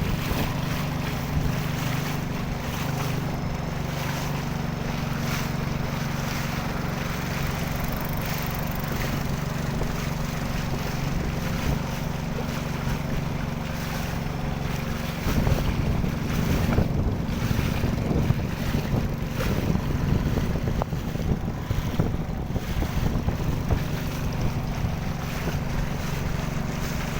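Boat engine running at a steady pace under way, with water and wind noise around it. From about halfway through, wind buffets the microphone in gusts.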